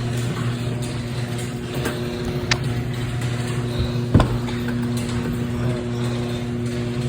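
A steady low mechanical hum, with two sharp clicks, one about two and a half seconds in and one about four seconds in.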